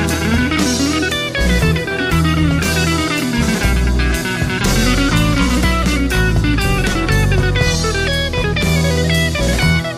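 Instrumental progressive rock: fast runs of notes in the lead over a busy electric bass line and a drum kit with cymbal crashes, with electric guitar in the band.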